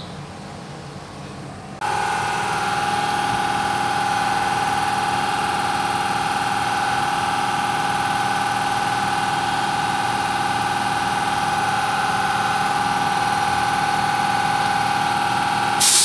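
A steady machine whine at one unchanging pitch, starting suddenly about two seconds in and ending in a short loud burst of noise.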